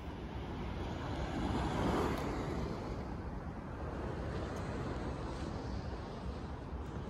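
Sea water washing and lapping in a steady rush, swelling louder for a moment about two seconds in, over a low rumble of wind on the microphone.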